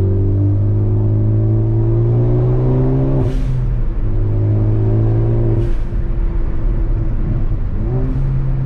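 Ford Focus ST's turbocharged four-cylinder pulling up through the revs under acceleration, its pitch climbing steadily, then breaking off at a gear change about three seconds in and again near six seconds. Each throttle lift brings a short, sharp burst of noise, and the engine runs unevenly and crackly after the second lift, in keeping with a pops-and-crackles tune. It pulls again near the end.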